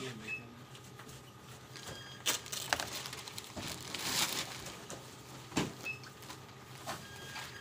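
Plastic parcel wrapping rustling and crinkling as a package is torn open and a jacket pulled out of it, in irregular sharp crackles that are loudest around the middle.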